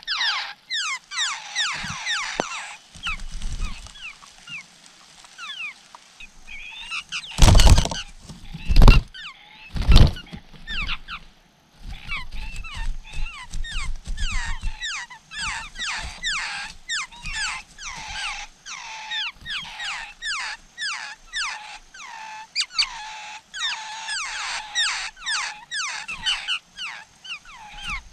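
Laughingthrush nestlings begging: rapid, repeated high chirps, each sliding downward in pitch, as the parent feeds them at the nest. A third of the way through, three loud thumps break in, followed by a short lull before the chirping resumes.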